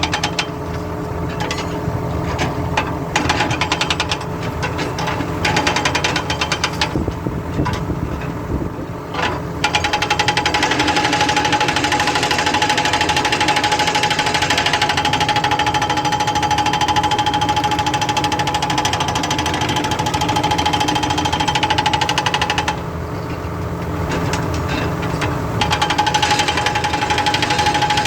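Excavator-mounted hydraulic breaker hammering with rapid, evenly spaced blows over the excavator's running engine. It works in short stop-start bursts at first, then hammers continuously for a long stretch, stops for a few seconds about three-quarters of the way through while the engine runs on, and starts again.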